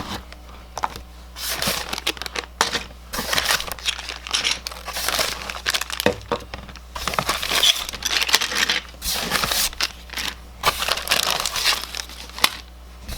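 Plastic bags and packaging crinkling in irregular bursts as the sprue and parts bags of a tabletop miniatures kit are pulled out of the box and handled.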